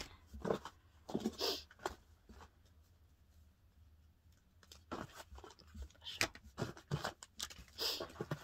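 Product sachets and small cardboard boxes being handled and sorted, giving scattered clicks, taps and brief crinkling rustles.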